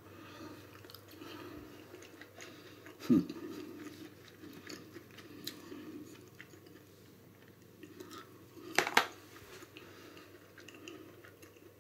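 A man chewing a mouthful of sliced meat, with faint soft mouth sounds. There is a short low sound falling in pitch about three seconds in, and a sharp click about nine seconds in.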